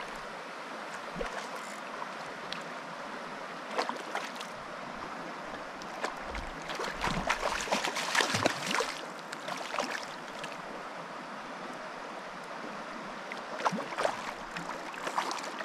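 A shallow stream running over a cobble bed, with bursts of close splashing in the water, loudest from about six to nine seconds in and again near the end.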